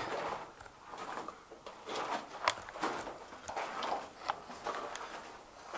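Scattered short scuffs and clicks, unevenly spaced, several a second, in a rock mine tunnel.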